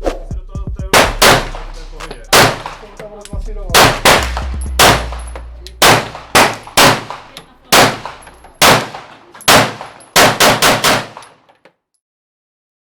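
Laugo Arms Alien 9mm semi-automatic pistol being fired, about eighteen shots at irregular spacing, each a sharp crack with a ringing tail, closing with a quick run of five or so.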